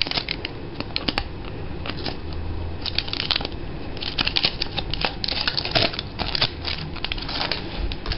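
Scissors cutting through a plastic bottle's base: many short, sharp snips at an irregular pace.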